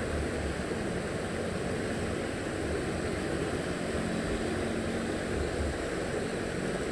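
Steady outdoor background noise with wind buffeting the microphone in irregular low rumbles.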